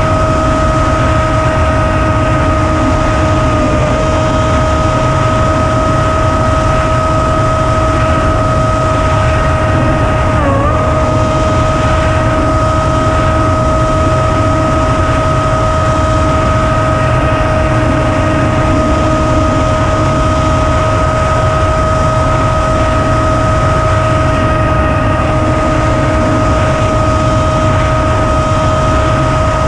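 Electric motor and propeller of an FPV flying wing heard from its own onboard camera: a steady high whine over heavy wind rush, the pitch dipping briefly about ten seconds in.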